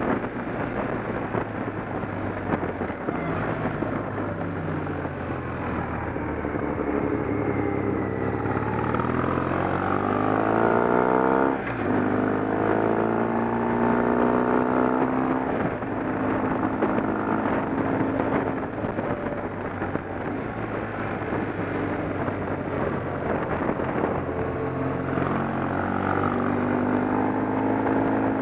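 A motor vehicle's engine running under way, its pitch rising and falling as it speeds up and slows. About twelve seconds in the pitch rises, then drops sharply, as at a gear change.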